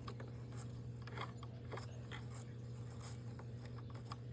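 Roomba robot vacuum running with its brushes spinning: a steady low hum with a few faint light clicks.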